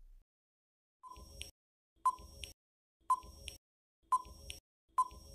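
Quiz countdown timer sound effect: a short electronic tick-beep once a second, five times, starting about a second in.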